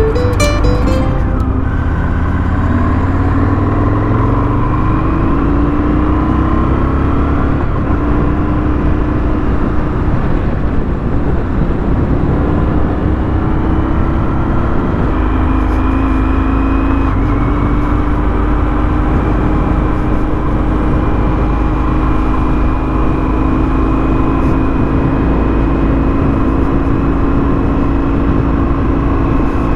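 Motorcycle engine under way: revs climb over the first several seconds, dip about fifteen seconds in, then hold steady at cruising speed, over a heavy wind rumble on the microphone.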